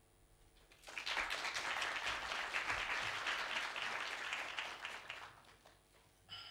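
Audience applauding for about four seconds, starting about a second in and fading away.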